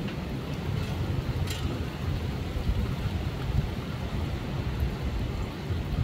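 Storm wind gusting against a phone microphone with a low, uneven rumble, over steady rain. A few faint drip-like ticks come in the first second and a half.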